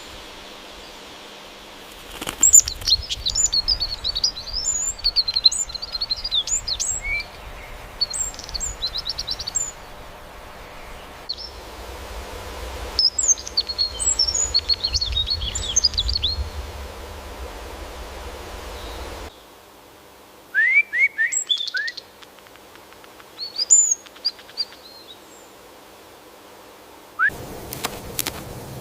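Small birds chirping and twittering in dense rapid bursts, followed by a few louder, separate calls that each slide downward in pitch. The background hiss changes abruptly a few times, as in spliced nature recordings.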